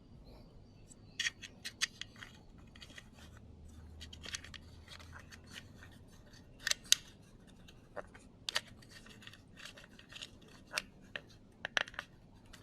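Scattered small, sharp clicks and light scraping of metal parts: the retaining clip being worked back onto a new door lock barrel inside a Toyota Hilux door.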